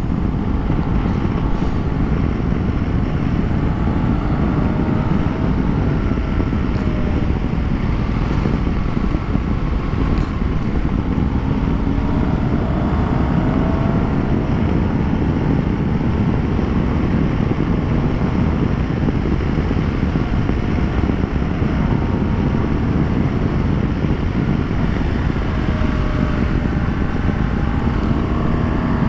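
BMW R1200GS boxer-twin motorcycle under way: a steady rumble of engine, wind and road noise, the engine pitch rising and falling with the throttle.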